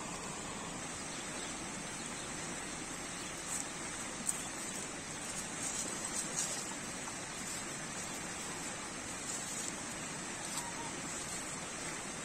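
Steady rushing of a shallow rocky stream, with a few light crackles of dry leaves and the rug being handled between about three and a half and six and a half seconds in.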